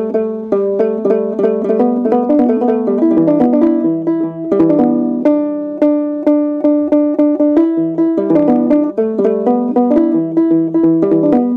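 Kirar, the Ethiopian lyre, played solo: a continuous run of quick plucked notes, several a second.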